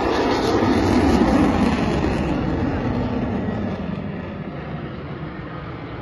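Jet aircraft flying past and away, its engine noise falling in pitch and fading steadily as it recedes.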